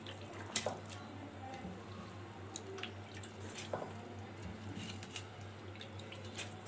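Spiced water boiling in a karahi, with soaked basmati rice just added: small pops and drips from the bubbling liquid, a few sharper clicks, and a low steady hum underneath.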